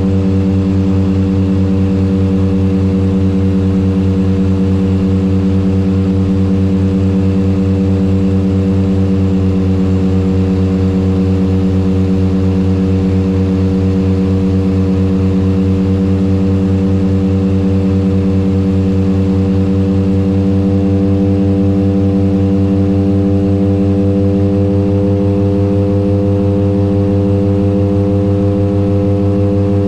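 Turboprop airliner's propellers and engines heard from on board, a steady deep drone on final approach.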